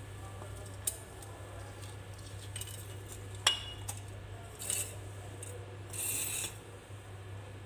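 A small ceramic plate knocking and clinking against a glass jar as spices are tipped into it: a few sharp clinks, the loudest with a short ring about three and a half seconds in, and a brief gritty pouring rustle around six seconds. A steady low hum runs underneath.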